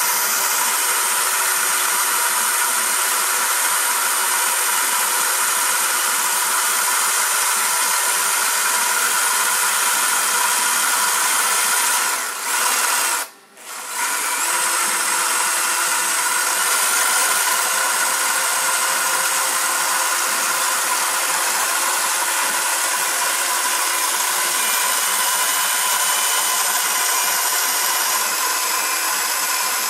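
Cordless drill driving a drill-powered cable winch, running steadily with a whine as it lowers a hanging gas cylinder. It stops briefly about halfway through, then runs again.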